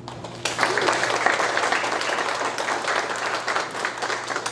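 Audience applauding, a dense patter of many hands clapping that starts about half a second in and begins to thin near the end.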